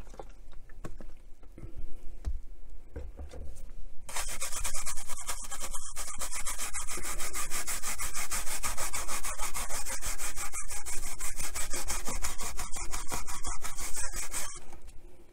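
Toothbrush bristles scrubbing rapidly back and forth over the ridged metal grill of a Roberts RIC1 radio, scrubbing grime off it. The scrubbing starts about four seconds in and stops near the end, after a few seconds of light clicks and handling.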